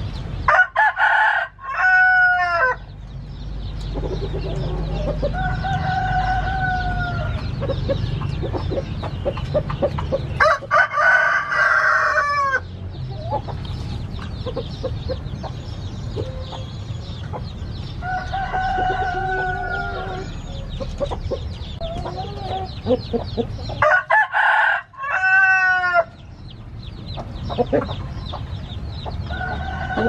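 Gamecocks (roosters) crowing three times, about ten seconds apart, each crow about two seconds long, with softer drawn-out clucking calls between the crows. A steady low hum runs underneath.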